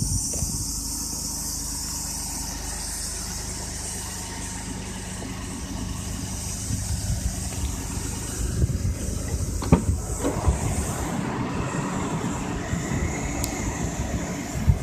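Suzuki Twin microcar's small engine running steadily, with a steady high hiss over it and a sharp knock a little under ten seconds in.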